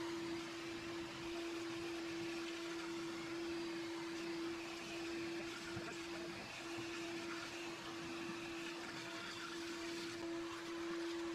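Shop vacuum running steadily: a constant hum with an airy rush of suction through its hose.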